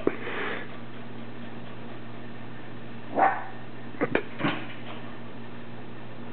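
A few short dog sounds and sharp clicks, as from claws on a hardwood floor, while an American Eskimo dog plays with a Pembroke Welsh Corgi puppy. A steady low hum runs underneath.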